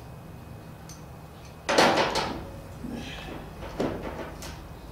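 Metal clattering and clanking as locking pliers and steel parts are handled against a steel tool cart and toolbox. The loudest clatter comes about two seconds in, with smaller ones after it, over a steady low hum.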